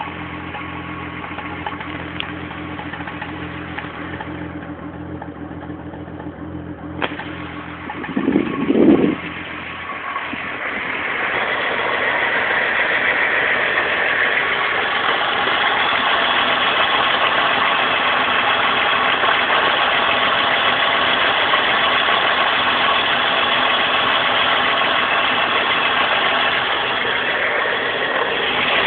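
Volkswagen VR6 six-cylinder engine idling while misfiring after water from a puddle got into it. About eight seconds in there is a brief louder burst, after which the engine runs louder and steadier.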